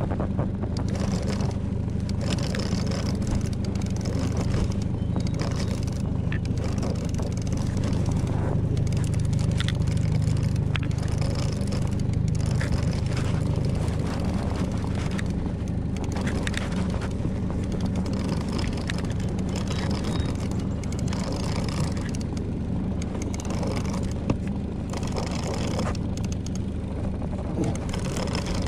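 Fishing boat's motor running at a steady drone while the boat is under way.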